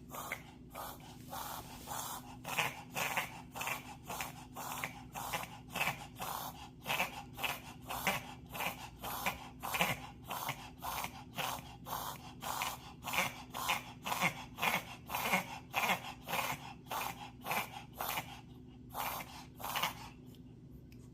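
Dog reverse sneezing: rapid, repeated noisy inhalations through the nose, about two a second, easing off near the end. A harmless spasm that the vet linked to pollen allergy.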